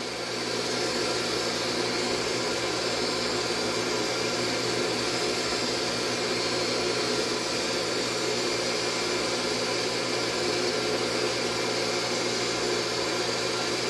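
Mini polisher's small electric motor running steadily, its small foam pad buffing polishing compound on glossy paint. The level rises slightly in the first second, then holds even.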